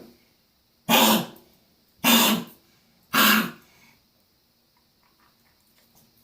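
A dog coughing in three hard hacks about a second apart, which the owner takes for her trying to bring up something stuck in her throat.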